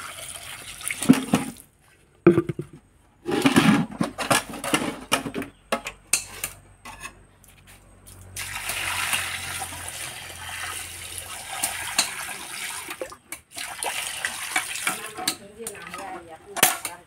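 Water poured from a pot, splashing and running over muddy taro corms as they are washed on a concrete floor. It comes in several short stretches, with abrupt breaks about 2 and 3 seconds in.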